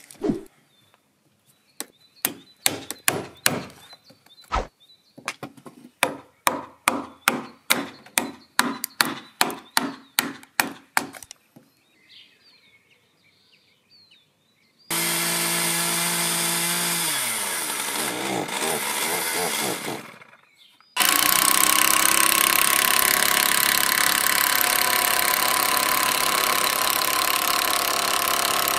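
A wood chisel driven into a timber beam with quick, regular hammer blows, about two to three a second, for some eleven seconds. After a pause a power tool motor runs for several seconds and winds down with falling pitch. Then a cordless impact driver hammers steadily, driving a long screw into the timber.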